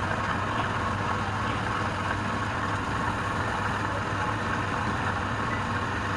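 A motor running steadily, with a low hum under a constant rushing noise and no separate knocks or strokes.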